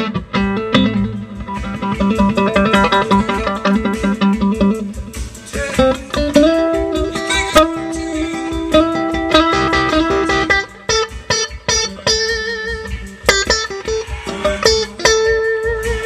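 Electric guitar played through a 1960 Fender tweed Bassman amp: picked notes and chords ringing out, with long held notes in the middle and quicker picking near the end. The amp has a new Mallory 150 capacitor in place of a leaky Astron, and the notes come through well defined.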